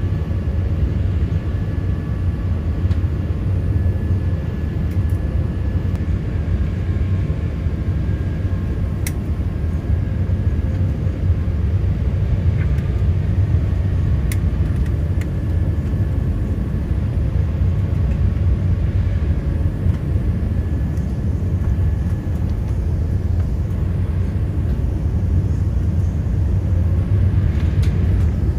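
Steady low rumble of an Airbus A380's engines and airflow heard inside the cabin on final approach for landing, with a faint steady whine above it.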